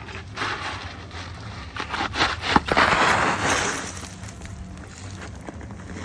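A person sliding down a loose dirt slope: soil and small stones scraping and crunching under the body, with a few knocks. It builds to its loudest about halfway through, then dies down after about four seconds.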